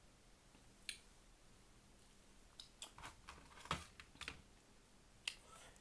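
Faint, close-up eating sounds: soft mouth and chewing clicks while eating a burger. There is a single click about a second in, a scattered run of them in the middle, and one more near the end.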